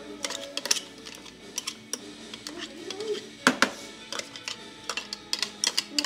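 Irregular light clicks and knocks of a plastic food-processor bowl being tapped and scraped against a plastic pail as chopped chilies are emptied out, with one sharper knock about halfway through. Soft background music runs underneath.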